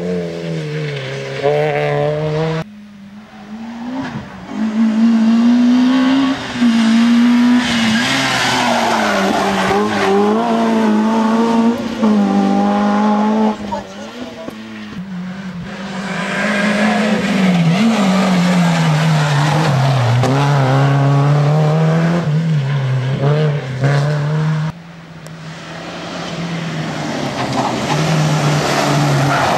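Rally cars passing one after another, their engines revving hard, the pitch rising and falling as they brake, change gear and accelerate out of corners. The sound cuts off abruptly between cars a couple of times.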